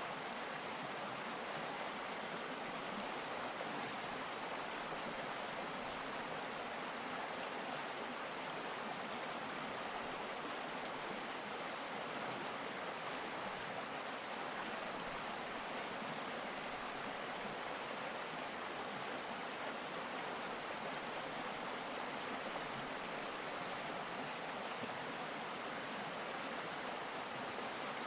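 Shallow mountain creek running over rocks: a steady, even rush of water that does not change.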